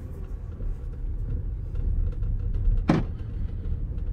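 Low rumble of a Bentley Bentayga's cabin while driving slowly, with faint scattered ticks and one short, sharp creak about three seconds in: the interior squeak the owner complains about.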